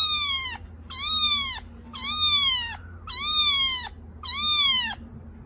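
Young kitten meowing repeatedly, high-pitched cries about one a second, each sliding down in pitch.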